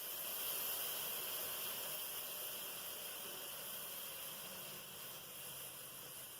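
Steam hissing steadily from an Instant Pot's pressure release valve set to vent, slowly fading as the last of the pressure escapes and the float pin is about to drop.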